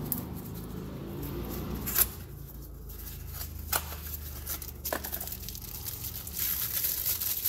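Small cardboard box of a tapered roller wheel bearing being torn open by gloved hands, with a few sharp clicks and snaps, then a crinkly rustle of packaging near the end.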